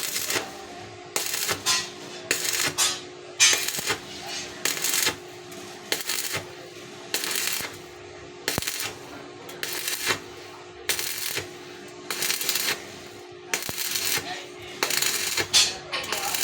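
Welding arc from an arc-welding machine rigged for TIG welding, struck again and again in short hissing bursts about once a second, over a faint steady hum.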